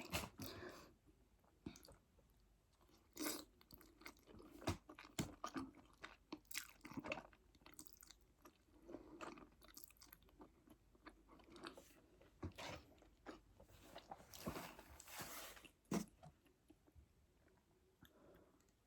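Close-miked eating: bites, crunching and chewing, with irregular wet mouth clicks.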